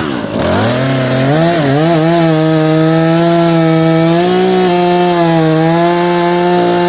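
Two-stroke gasoline chainsaw throttled up from idle, its pitch rising over the first second or two, then held at high, steady revs with a few brief dips in pitch.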